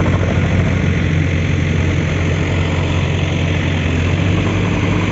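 Heavy diesel engine of earth-moving equipment running steadily at a constant speed, a deep even drone with no revving.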